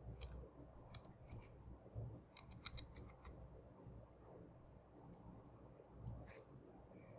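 Faint computer keyboard keystrokes as a short entry is typed, with a quick run of about seven taps a little past two seconds in. A couple of mouse clicks follow near the end, over a low background hum.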